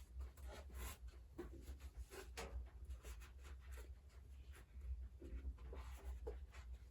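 Irregular light clicks and crackles over a steady low rumble.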